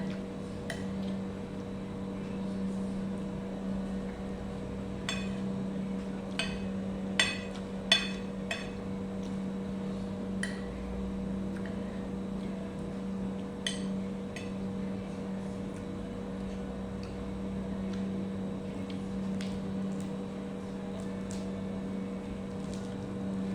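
A steady low mechanical hum with scattered sharp clinks and knocks, a quick cluster of them about a quarter of the way in and a few more later.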